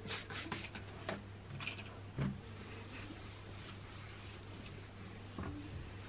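A plastic trigger spray bottle squirted several times in quick succession, then a few soft knocks and a cloth rubbing across a stone windowsill.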